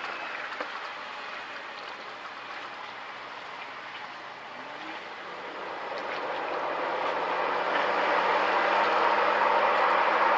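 A Jeep driving off-road on a dirt trail: the engine runs under tyre and body noise. From about halfway the sound grows louder and the engine note rises a little as the Jeep picks up speed.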